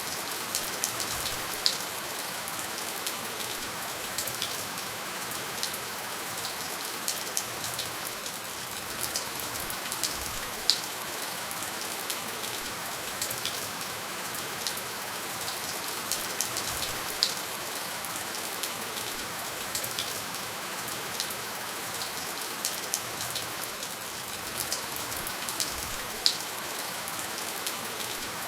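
Steady, gentle rainfall with no thunder: an even hiss of rain with many individual drops ticking sharply on a surface.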